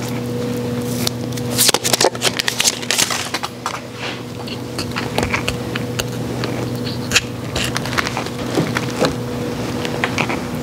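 Crackling and scraping of moss and evergreen sprigs as a pillar candle is pressed down onto its spiked candle plate in a moss-covered advent wreath, a tight fit, with a steady low hum underneath.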